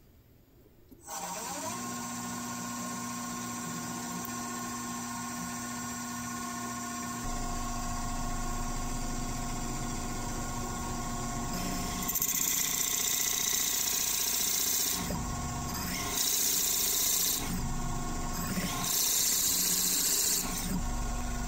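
Drill press motor starting with a short rising whine about a second in, then running steadily with a hum. About halfway through, the bit bores into a block of bloodwood in three louder cutting spells with a hissy chip-cutting noise and short pauses between them.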